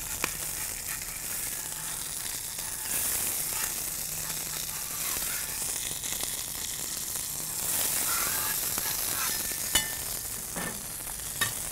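Smashed beef patties sizzling on a hot flat-top griddle. The sizzle swells twice as a steel scraper works under the patties, with a couple of sharp metal clicks near the end.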